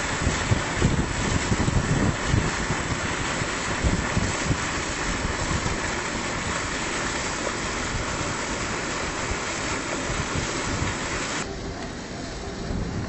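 Slurry of sand and water gushing from a dredge discharge pipe into the water over the low rumble of heavy diesel machinery. Near the end the rushing hiss cuts off suddenly, leaving a quieter low rumble.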